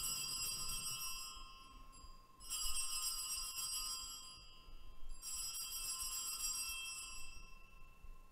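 Altar bells, a cluster of small bells, shaken three times as the chalice is elevated at the consecration. Each ring is a bright jingle of several high tones lasting one and a half to two seconds, with short gaps between.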